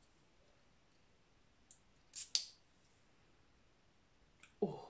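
Perfume atomizer spraying: one faint short spritz, then two quick hissing sprays close together a little past the middle, with a brief soft sound near the end.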